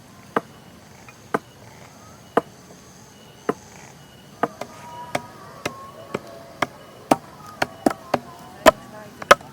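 Repeated sharp knocks, evenly about one a second at first, then quicker and uneven from about halfway.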